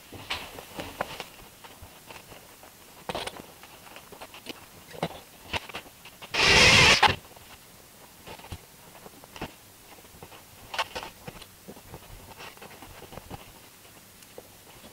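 Hands working on a model railway baseboard: scattered small clicks, taps and scrapes as a signal is fitted into place. About six seconds in there is one loud, noisy rustle lasting under a second.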